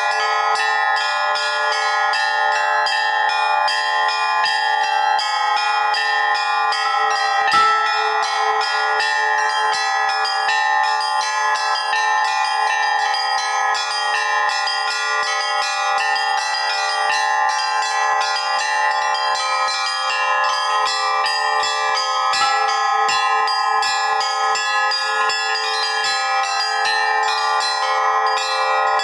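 Russian-style ensemble bell ringing: two ringers playing the upper and middle rows of small bells together, a dense, rapid pattern of strokes with many overlapping ringing tones and no deep bass bell. A single dull knock sounds about eight seconds in.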